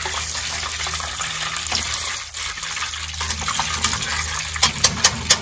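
Hot oil sizzling steadily as chicken wings deep-fry in a pot. From about four and a half seconds in, a quick run of sharp clicks.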